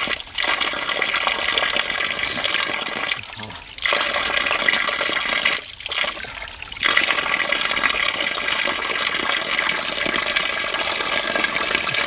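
Natural spring water running and splashing out between rocks, cutting out briefly twice, about three and six seconds in.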